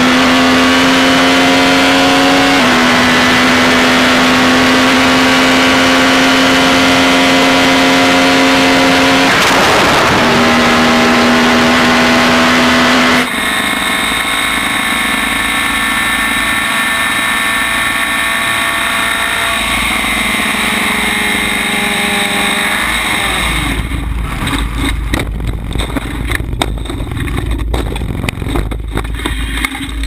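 Onboard sound of an open-wheel race car's engine held at high, near-steady revs, with a short break about ten seconds in. Then a different single-seater on a wet track: its engine note falls as the car slows, and for the last several seconds a heavy low rumble with knocks and clatter takes over as the car runs off onto the grass.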